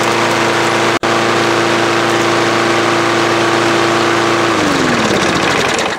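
Craftsman 6.25 hp lawnmower engine running steadily at its newly adjusted idle speed, then shut off about four and a half seconds in, its note falling as it winds down to a stop. The sound cuts out for a split second about a second in.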